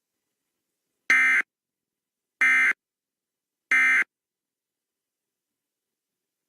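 Emergency Alert System End of Message code: three short, identical bursts of SAME digital data tones, about 1.3 s apart, marking the end of the alert.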